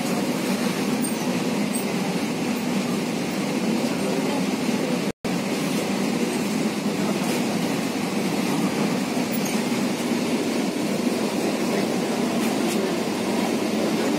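Kochi Metro train running along the elevated track, heard from inside the carriage as a steady rumble of wheels on rail. The sound cuts out completely for an instant about five seconds in.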